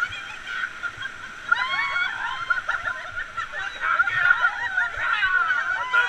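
Whitewater rapids rushing and splashing around an inflatable raft, with several rafters' voices calling out over the water from about a second and a half in.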